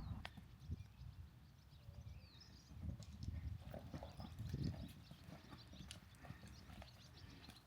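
Horses' hooves clopping faintly and unevenly on the ground as the horses move about.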